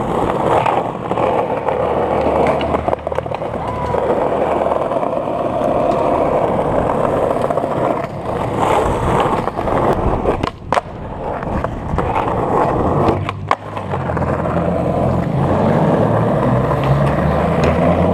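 Skateboard wheels rolling over pavement with a steady rough rumble. A couple of sharp clacks of the board come about two-thirds of the way through.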